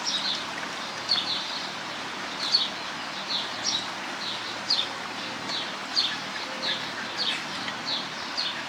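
A bird chirping over and over in short high notes, one or two a second, over a steady background hiss.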